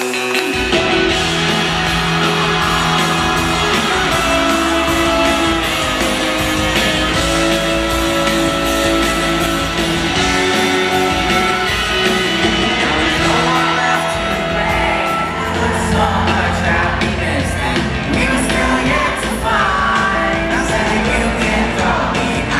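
A band playing live in a large hall, a singer over guitars, keyboards and drums, with shouts and whoops from the audience.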